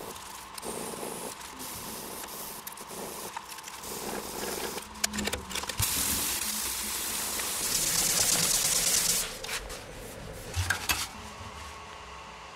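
Sandpaper rubbing on a wooden wa knife handle of olive wood and bulloak: short scratchy strokes with a sandpaper sheet, then from about six seconds in a strip of abrasive pulled back and forth around the handle in a faster, louder hiss lasting about three seconds. A couple of light clicks follow near the end.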